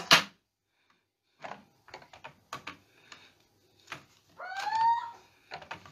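A sharp plastic clack near the start as the clear lid of a stamping tool is swung open, followed by light clicks and taps of handling. About four and a half seconds in, a pet bird gives a single short call that rises slightly in pitch.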